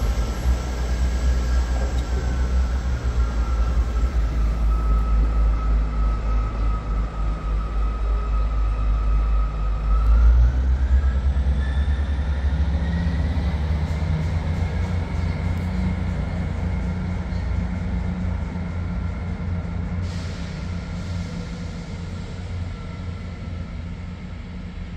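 Diesel multiple unit train running under power: a heavy engine rumble with a transmission whine that rises in pitch about ten seconds in, then slowly fading.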